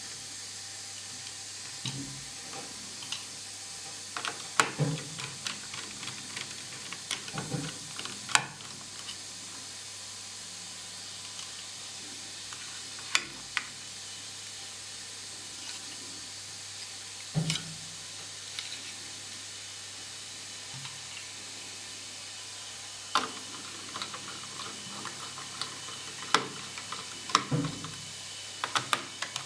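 Scattered small clicks and taps of a screwdriver and loose screws and parts, from a laptop's fan and heatsink assembly being unscrewed and lifted out, over a steady hiss.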